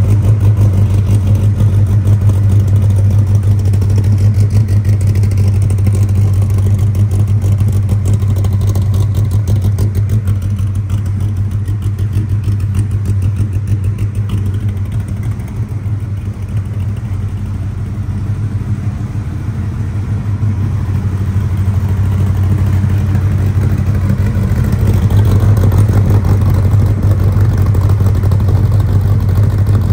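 Dodge Viper V10 idling steadily through its side-exit exhausts. It is somewhat quieter in the middle and louder again near the end.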